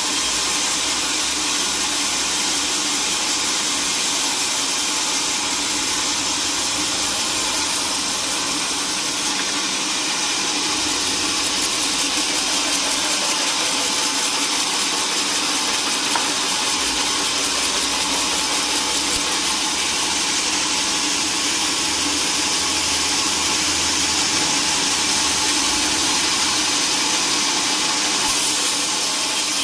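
Sawmill machinery running steadily, a constant mechanical din with a hiss-like high edge.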